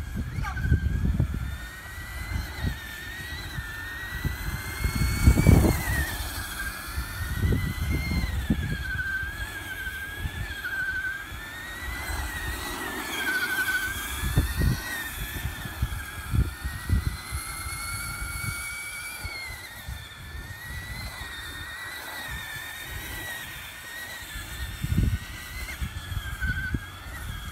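Electric RC monster truck driving on asphalt: its motor and drivetrain whine steadily, rising and falling in pitch as the throttle is worked, over uneven tyre rumble and knocks. The loudest burst comes about five seconds in.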